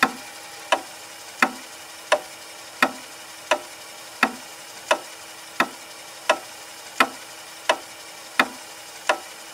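Clock ticking: sharp, even ticks about three every two seconds, over a faint steady hum.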